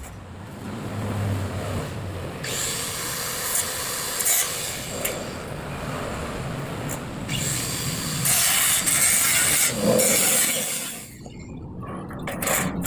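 Electric angle grinder cutting light-gauge steel channel, a harsh high-pitched grinding noise in two spells of a few seconds each, the second louder; it stops about a second before the end.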